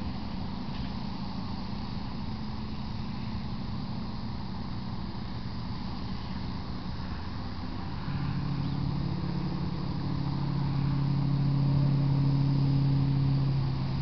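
Steady low engine hum, growing louder about eight seconds in and easing off near the end.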